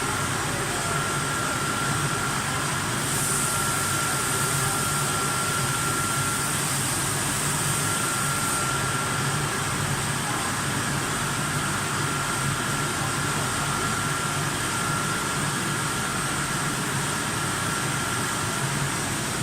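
Vertical flat glass washing machine running steadily: a constant mechanical hum with a thin high whine that drops out and returns several times.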